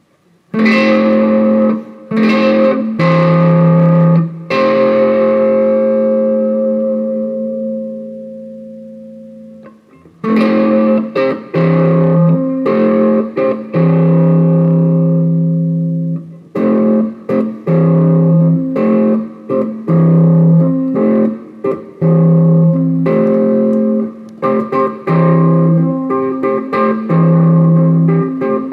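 Gibson Les Paul Custom electric guitar played through a Bugera V5 tube amp on a crunch setting: a few chords are struck, one is left ringing and fades over about five seconds, then a choppy rhythm of short chords follows.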